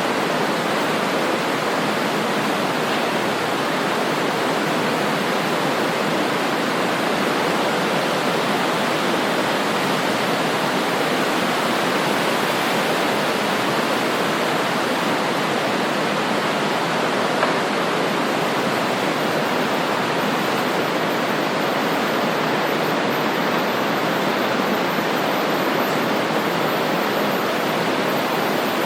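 Fast-flowing river water running steadily, an even, unbroken rush.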